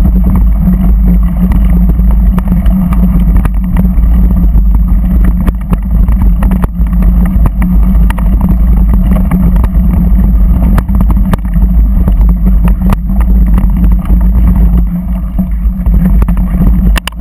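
Off-road vehicle engine running steadily while crossing rough gravel, heavily overlaid by wind buffeting and rattling on a vehicle-mounted camera's microphone.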